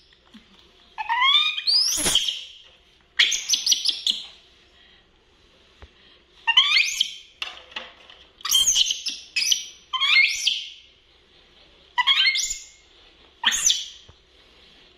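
Young pet monkeys squeaking and chirping: high, sharply rising calls in short bouts of several calls each, about seven bouts, with quiet gaps between them.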